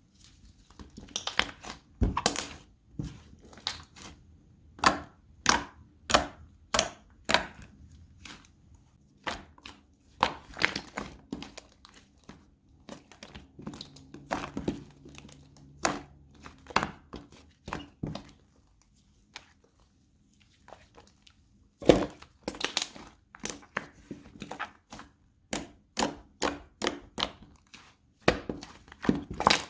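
Clay-mixed slime being pressed and squished by hand, making irregular sharp clicks and popping crackles, sometimes several in quick succession, with short pauses between.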